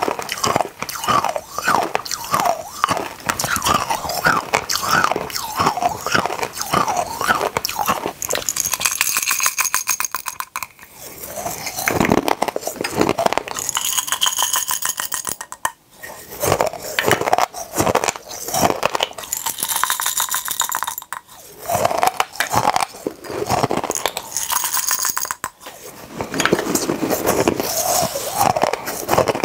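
Close-miked crunching and chewing of tiny hard sugar candies, with several spells of the little candies rattling as they are tipped from small glass bottles into the mouth.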